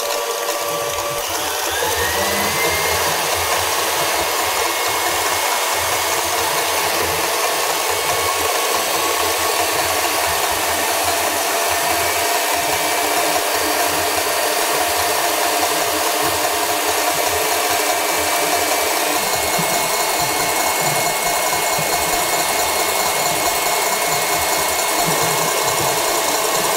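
KitchenAid stand mixer running, its whisk whipping eggs and coconut sugar in the steel bowl. The motor's whine rises as it is turned up about two seconds in, then runs steadily at high speed.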